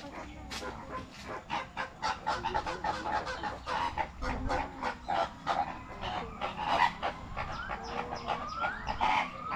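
A flock of birds calling over and over in short clucking and honking notes, with a few rising calls near the end.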